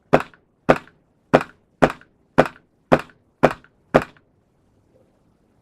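KJ Works CZ P-09 gas blowback airsoft pistol firing eight shots at a steady pace, a little under two a second, each a sharp crack of the gas shot and slide blowback. A battery tracer unit weighs on the muzzle, and the pistol still cycles fully with it.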